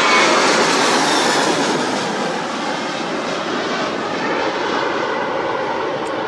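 Jet airliner's engines passing close by, then a steady, loud rush of engine noise that slowly fades as the aircraft moves away.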